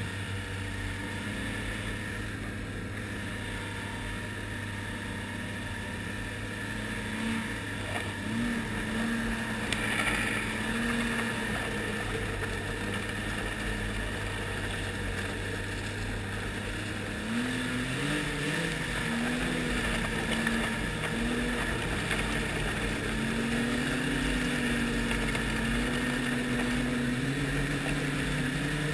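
Ski-Doo Renegade 1200 snowmobile's four-stroke three-cylinder engine running under way at a steady pitch, then rising in pitch a little over halfway through and wavering up and down with the throttle.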